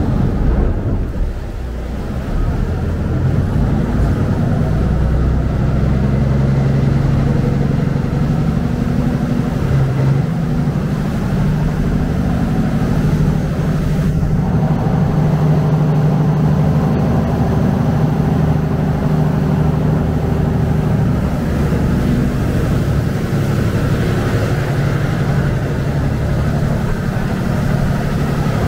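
Saen Saep canal boat's diesel engine running steadily at speed, with the rushing churn of its wake along the hull.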